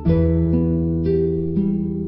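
Background instrumental music: plucked notes about twice a second over a held low bass.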